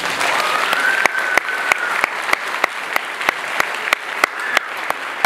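Audience applauding steadily, with one nearby clapper heard sharply about three times a second above the rest. A held high note, a cheer or whistle from the crowd, rises slightly in the first two seconds.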